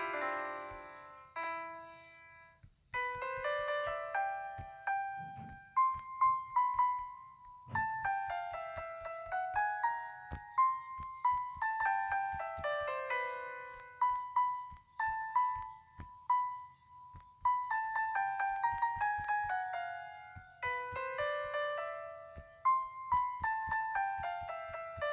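Background piano music: phrases of single notes running downward over and over, with a short pause about two seconds in.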